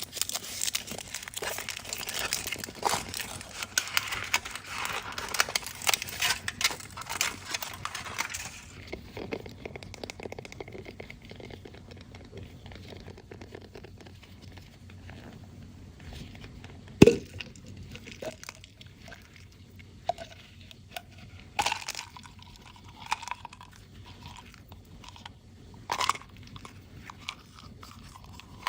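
Foil wrapper of a Kinder Surprise chocolate egg crinkling and tearing as it is unwrapped, thick and busy for the first eight seconds or so. After that it goes quieter, with scattered clicks and taps of handling; the loudest, a single sharp click, comes about halfway through.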